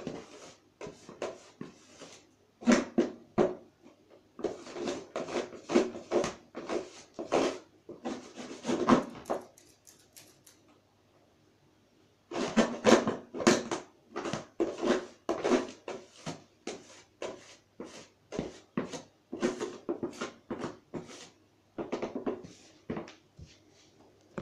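A small scoop scraping and shoving used rabbit litter across the bottom of a plastic cage tray, in quick repeated strokes with a short pause about halfway.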